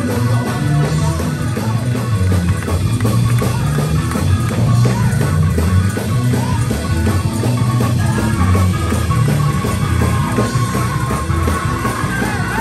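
Loud live worship music from a church band, with a strong bass line and a man singing into a microphone over it.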